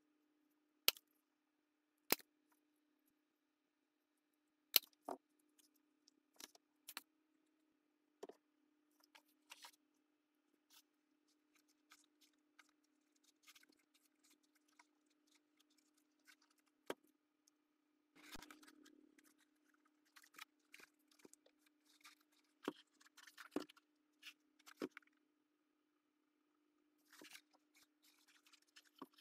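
Metal hole punch pliers working on thin cardboard: three sharp clicks in the first five seconds, then lighter clicks and the rustle of the cardboard being handled. A faint steady hum runs underneath.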